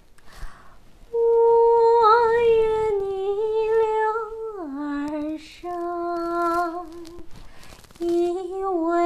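A woman humming a slow melody in long held notes, as a vocal exercise to find humming resonance (哼鸣) that makes the voice stand up and sound round. The first note is high and held for a few seconds, then the tune falls to lower held notes.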